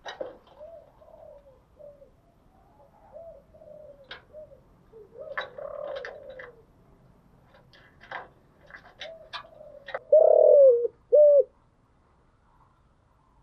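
Spotted dove cooing: soft, repeated low coo notes, then a louder coo of two notes about ten seconds in. Scattered short clicks sound between the coos.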